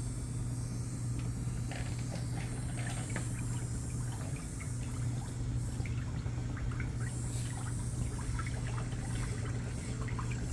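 Water trickling and splashing lightly in a pedicure foot tub, over the steady low hum of a motor.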